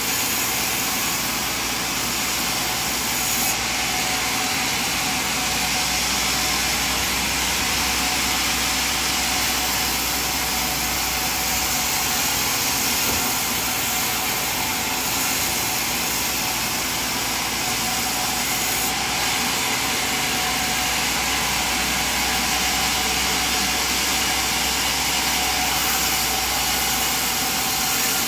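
Sawmill machine running steadily, a continuous mechanical din with hissing high-pitched noise.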